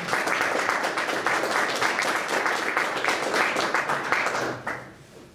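Audience applauding, many hands clapping together, dying away about four and a half seconds in.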